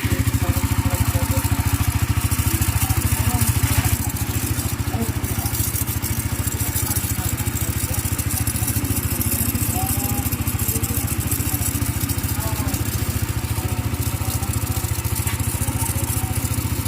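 Suzuki GSX-R150 fuel-injected single-cylinder engine idling steadily, a little quieter after about four seconds, with a gritty grinding inside like sand rubbing. It is the noise of a worn bearing whose balls are worn down, which the mechanic puts down to oil changes left too long.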